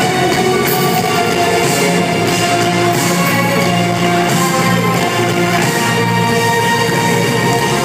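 Rock band playing live on stage: loud, steady full-band music with electric guitars.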